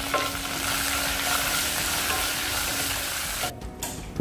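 Curry leaves, garlic and dried red chillies sizzling in hot coconut oil in a saucepan as they are stirred with a spatula, the tempering (tadka) stage of the dish. The sizzle drops away suddenly about three and a half seconds in.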